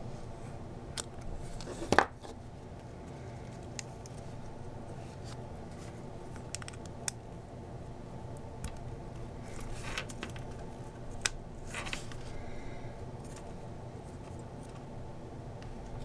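Scissors snipping heat-shrink tubing, one sharp snip about two seconds in, followed by scattered small clicks and taps as the tubing and cable are handled, over a steady low hum.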